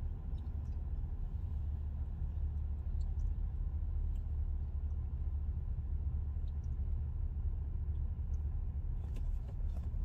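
Steady low rumble of a moving car heard from inside the cabin: engine and road noise.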